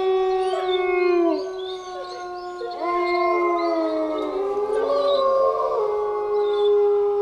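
A pack of wolves howling together: several overlapping long calls that rise and fall in pitch.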